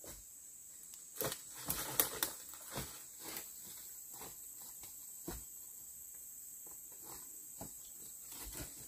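Footsteps crunching through dry leaf litter and snapping twigs, in irregular steps, loudest a second or two in. A steady high insect buzz runs underneath.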